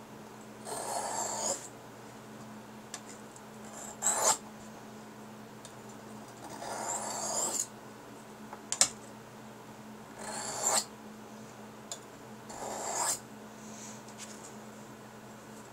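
Stainless steel kitchen knife blade being drawn across a Fallkniven DC4 sharpening stone: about six separate scraping strokes, some short, some over a second long, with pauses between, as the edge is finished off.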